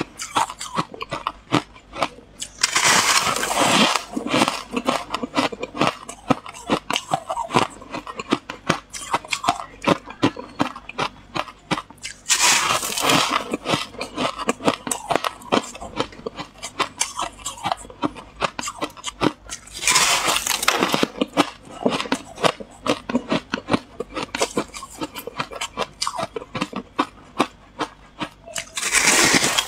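Freezer frost being bitten and chewed close to a clip-on microphone: rapid crackly crunching throughout, with four louder crunching bites about eight seconds apart.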